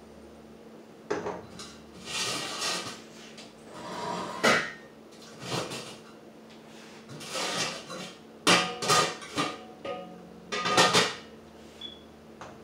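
Wooden spoon stirring and scraping inside a stainless steel cooking pot of pineapple atole, in uneven strokes about a second apart with a few sharper knocks against the pot.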